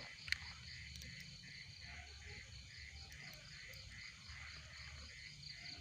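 A night animal's call: a steady, pulsing trill at about five pulses a second, over a low hum. This is the strange sound growing "semakin kencang" (louder and louder).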